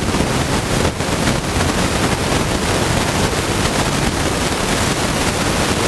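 Loud, steady hiss of noise on the microphone line, like static, with a few faint clicks.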